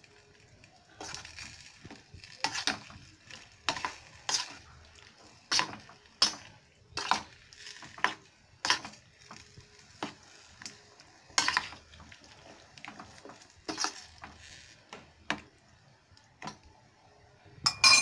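Metal spoon stirring potato sticks into tomato-onion masala in a stainless steel pot, clinking and scraping against the pot's sides again and again at an uneven pace, with a loud clink near the end.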